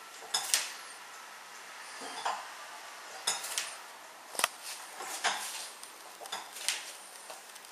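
A landmine barbell and its weight plate clinking and clanking irregularly as the bar is pushed from a squat to full overhead extension and lowered again. There are several sharp metallic knocks, a few of them in quick pairs.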